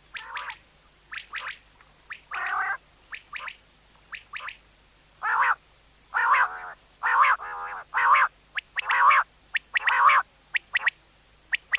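Common quail calling: an irregular series of short calls, some in quick clusters of two or three sharp notes, others longer and harsher, coming thicker and louder in the second half.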